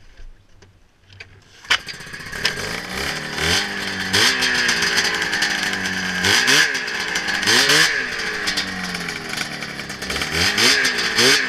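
Ski-Doo 583 two-stroke twin snowmobile engine starting a little under two seconds in, then revved up and down in short blips several times. The revving is a test of a carburetor mixture adjustment on the air/fuel screws.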